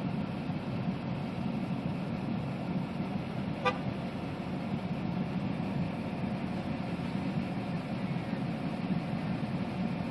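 Steady low rushing noise of strong storm wind under a supercell. A single short sharp blip sounds about three and a half seconds in.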